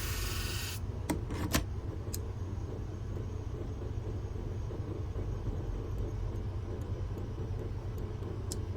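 Shear-sharpening machine running with a steady low hum. The hiss of a grooming-shear blade being ground on it cuts off about a second in, followed by a few light metal clicks.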